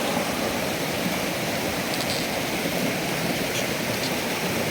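Steady rush of fast-flowing water from a waterfall and the river below it.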